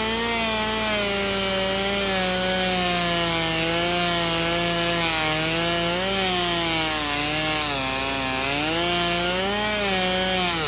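Bicycle wheel spun by a pressure washer's water jet, making a buzzing whine that wavers up and down in pitch like a chainsaw revving, over the hiss of the spray.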